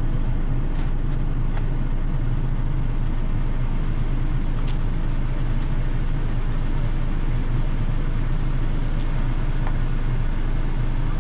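Car engine idling steadily, a constant low hum, with a few faint clicks and rustles on top.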